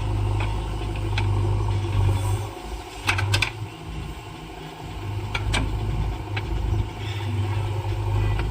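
Backhoe loader's diesel engine running steadily, dropping in level for a couple of seconds midway, with a few sharp knocks about three seconds in and again between five and six seconds in.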